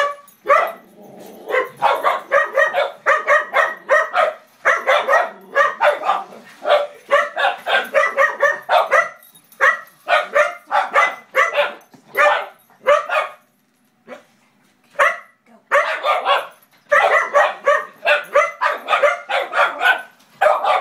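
Puppies barking excitedly at a moving toy remote-control car, short barks coming several a second in long runs, with a pause of about two seconds about two-thirds of the way through.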